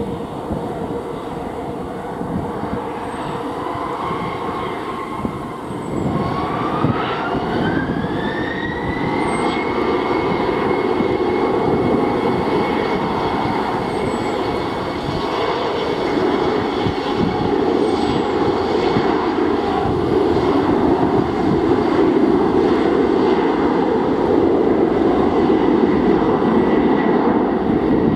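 Embraer E190 airliner's two CF34 turbofan engines spooling up. About six seconds in a whine rises in pitch for a few seconds, then holds steady while the engine noise keeps building as the jet starts its takeoff roll.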